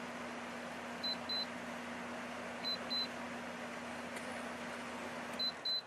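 LG window air conditioner running, its fan blowing steadily with a low hum, while the unit gives three double beeps as remote buttons are pressed to change settings. Just after the last double beep, near the end, the fan noise and hum drop away.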